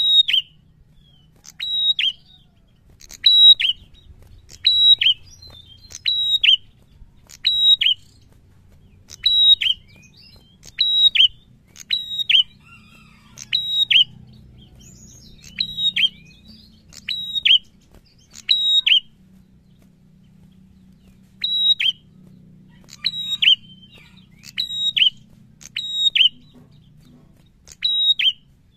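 Caged prenjak (a tailorbird) calling over and over: sharp, high two-part notes, each dropping steeply in pitch, about one call every second and a half, with a short break about two-thirds of the way through.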